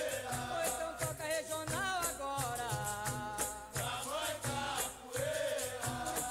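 Recorded capoeira song: a voice sings a melody over a steady, evenly repeating beat of percussion and a shaken rattle.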